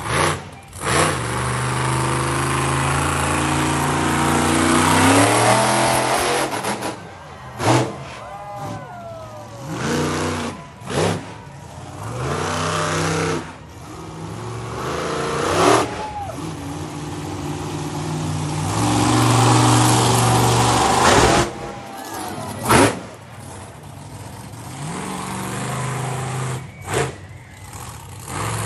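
Monster truck engine running loudly and revving again and again, its pitch rising and falling between spells of steady running.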